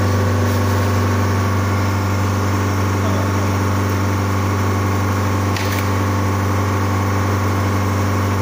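Steady machine hum with a strong low drone and several steady tones above it: the refrigeration unit of an ultra-low temperature LCD freezing separator running. A faint click about five and a half seconds in.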